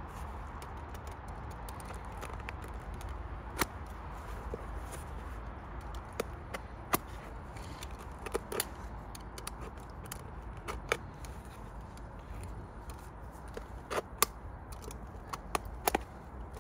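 Utility knife cutting into a sneaker: irregular sharp clicks and snaps as the blade works through the shoe, over a steady background hiss.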